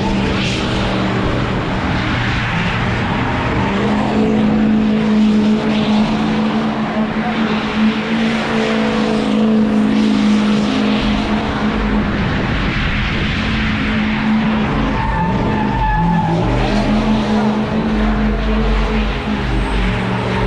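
Pickup truck doing a burnout: its engine held at high revs with the pitch stepping up and down, and its rear tyres squealing as they spin on the pavement.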